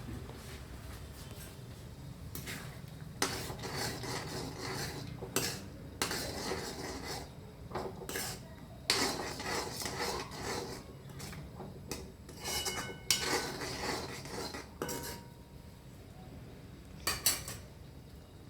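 Spoon stirring and scraping in a cooking pot, with irregular clinks and a few sharper knocks against the pot, as freshly added ground coriander and cumin are mixed into a tomato gravy.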